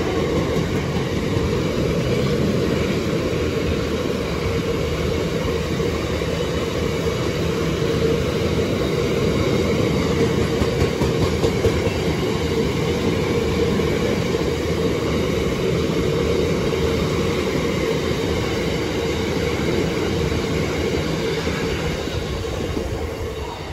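Freight train hauled by a Class 66 diesel locomotive passing through without stopping: a loud, steady rumble and clatter of the wagons on the rails, fading away near the end.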